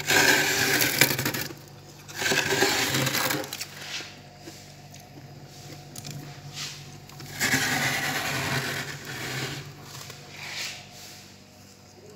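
Fingers scraping and crunching thick frost off the inside wall of a freezer, in rough bouts of scratching: two back to back, then a longer one after a pause of about four seconds, and a short scrape near the end.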